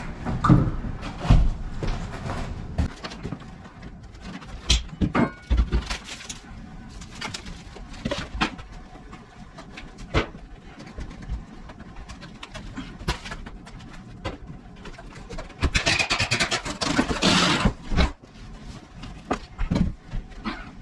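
Irregular knocks, clatter and scraping of broken flooring and debris being pulled out and handled. About sixteen seconds in there is a longer stretch of crunching and scraping.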